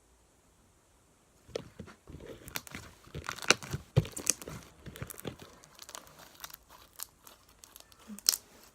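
Crunchy slime with plastic beads mixed in being squeezed and worked by hand, giving an irregular run of crackles and pops that starts about a second and a half in.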